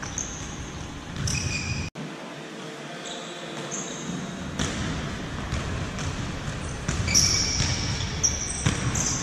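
Indoor football (futsal) being played on a wooden sports-hall floor: the ball being kicked and bouncing, echoing in the large hall, with short high squeaks of shoes on the floor. The kicks and squeaks come thicker in the second half.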